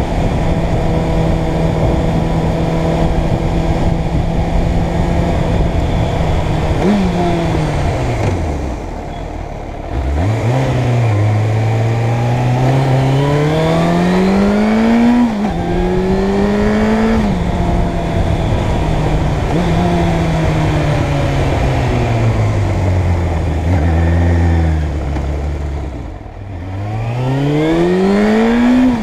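Suzuki Bandit 600 inline-four engine heard from the rider's seat. It runs steadily at first, then eases off about seven seconds in. From about ten seconds it revs up through the gears, with an upshift near fifteen seconds, then winds slowly down from about seventeen seconds and pulls away again near the end.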